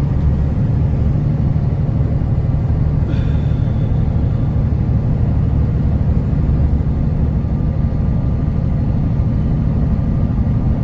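Steady low engine drone and road noise inside the cab of a Kenworth T360 concrete agitator truck on the move, with a brief faint hiss about three seconds in.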